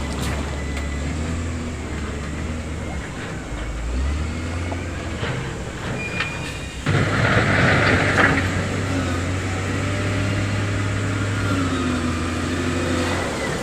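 Diesel engine of heavy construction equipment running steadily at a low pitch. About seven seconds in, a sudden burst of noise lasts a second or so over the engine.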